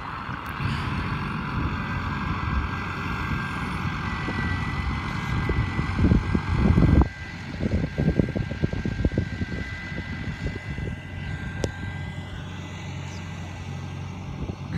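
Tractor engine running as its front loader carries a wrapped round bale. A higher-pitched noise rides over the engine and cuts off suddenly about seven seconds in, just after the loudest moment. The engine then runs on more quietly.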